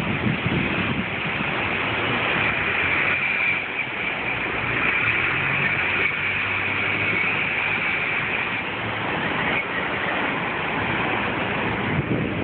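Steady traffic noise of a city street, with a vehicle engine humming a little louder for several seconds in the middle.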